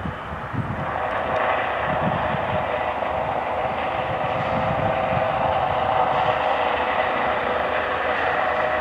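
Airbus H135 twin-engine helicopter flying low, a steady turbine whine over rotor noise, growing louder about a second in as it comes nearer.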